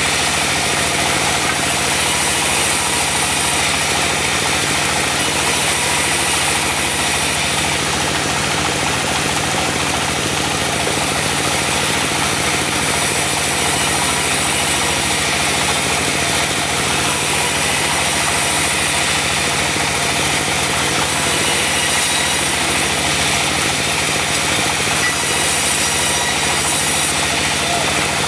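Diesel engine of a mobile sawmill running steadily while the saw cuts mahogany, with a high hiss that comes and goes every couple of seconds.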